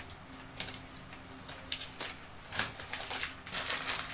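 Cardboard box and plastic packaging being handled: a string of sharp taps and clicks as the box is opened, then a denser rustle of plastic wrapping near the end as a pack is pulled out.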